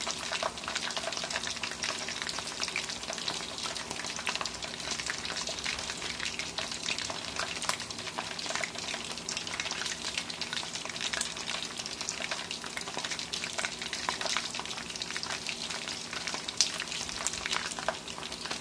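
Hot oil sizzling and crackling around a whole chicken frying in a wok, with a steady spatter of small pops and one sharper pop near the end.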